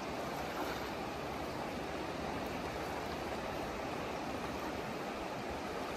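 Steady rushing of a wide, fast-flowing river.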